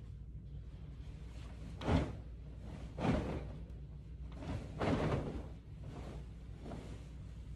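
A comforter and sheets being pulled off a bed and gathered up: three loud swishes of fabric, about two, three and five seconds in, the last one longer. A steady low hum runs underneath.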